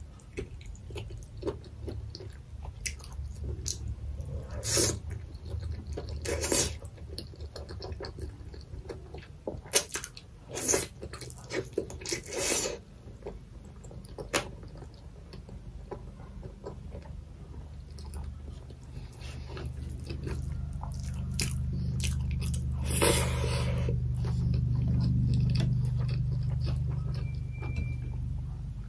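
Close-miked chewing of boiled goat-head meat, with wet mouth noises and occasional crunches and bites in separate short bursts. A low steady hum swells in the second half.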